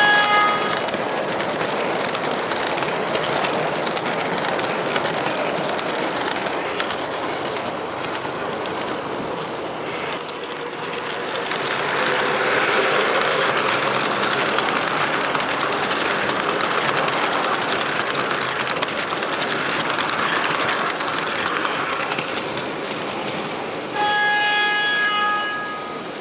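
MTH R40 model subway train running on its O-gauge track, a steady rumble of motor and wheels that grows a little louder in the middle. Its sound system sounds a horn briefly at the start and again near the end.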